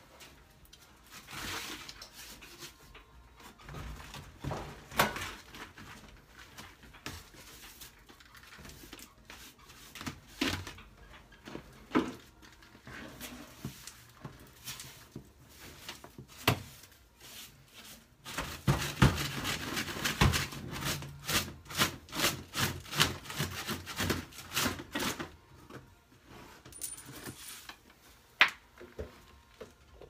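Small hand broom sweeping dryer lint across a tile floor and into a dustpan, in scattered strokes with knocks of the pan. Past the middle comes a quicker run of brushing strokes, about two or three a second.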